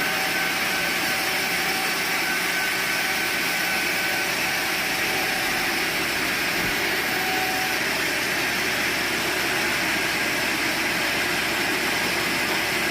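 Sawmill machinery running steadily: a continuous mechanical noise with a faint, steady whine that holds at an even level.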